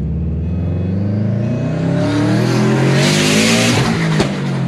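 Turbocharged Subaru WRX EJ20 flat-four accelerating, the engine note climbing steadily while a turbo hiss builds and peaks about three seconds in. Near the end the hiss cuts off with a sharp click and the revs drop.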